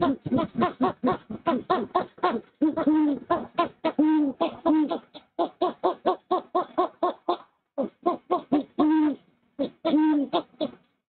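A pair of owls calling at the nest: a rapid run of short, pitched hoots, about three a second, mixed with several longer arched hoots, with a couple of brief pauses near the end. This is a mated pair's exchange around a prey delivery, the female chuffing and the male hooting back.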